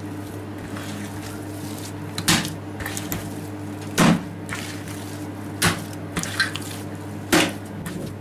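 A large mass of minced-meat cutlet mixture being lifted and slapped down onto a metal tray. Four heavy wet thuds come about every second and a half, with lighter knocks between them. This is the mince being beaten to make it smooth and plastic for cutlets. A steady low hum runs underneath.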